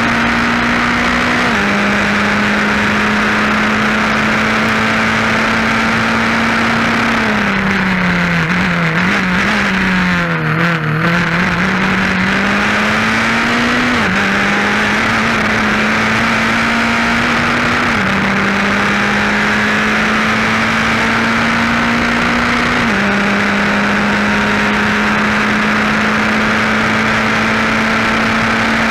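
Formula 4 race car engine heard onboard at high revs, its pitch climbing slowly in each gear and dropping sharply at four upshifts. In the middle the revs sag for a few seconds, then build again. A steady rush of wind and road noise runs underneath.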